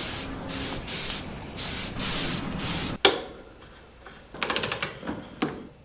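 Aerosol spray can hissing in several short bursts during a dirt-bike shock rebuild, followed by a sharp click and, about a second and a half later, a quick run of small clicks from handling parts or tools.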